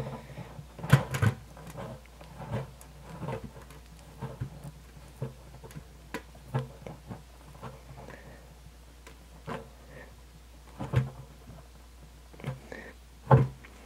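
Irregular small clicks and plastic creaks as a threaded fitting is screwed by hand into a drilled hole in a plastic bucket, its threads coated with silicone sealant.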